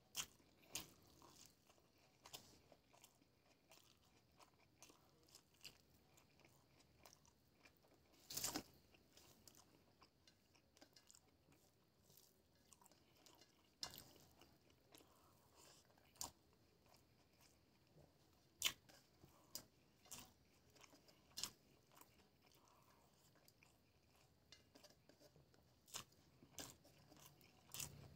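Quiet chewing of a person eating rice and omelette by hand, with scattered sharp clicks and smacks from mouth and fingers; the loudest come about eight seconds in and again about nineteen seconds in.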